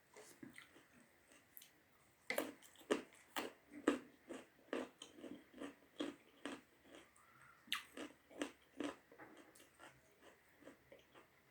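Close-miked chewing of a big mouthful of rice and curry (dal bhat): a run of wet smacks and clicks, about two to three a second, loudest from about two seconds in and softer near the end.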